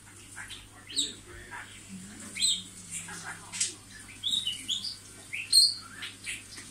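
Budgerigar warbling: a rapid run of short chirps, squeaks and quick up-and-down whistled glides, over a steady low hum.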